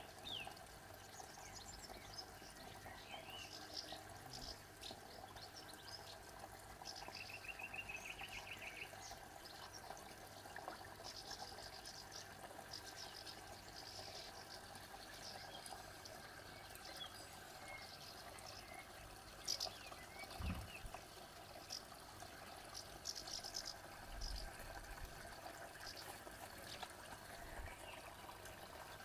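Faint outdoor background with scattered short bird chirps and a fast trill about eight seconds in, plus a couple of low bumps past the middle.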